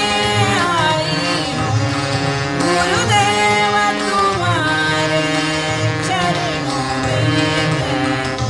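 A Hindi devotional bhajan, sung by a woman's voice in gliding, ornamented melodic lines over instrumental accompaniment, with percussion keeping a steady beat.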